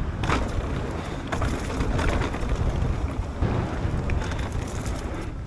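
Wind rushing over the microphone and tyre rumble from a mountain bike riding a trail, with a few scattered knocks.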